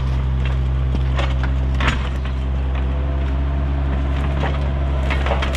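Kubota excavator's diesel engine running steadily, with a few sharp cracks and knocks over it, the loudest about two seconds in.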